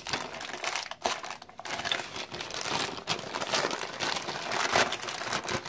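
Clear plastic packaging bag crinkling as it is worked open by hand, in irregular rustles and crackles.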